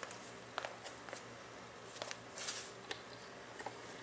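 Faint handling noises: a few light clicks and a short rustle over a steady low hum.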